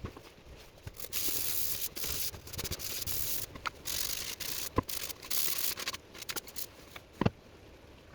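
A run of rough rubbing or scraping strokes in short bursts, with two sharp knocks, the second near the end.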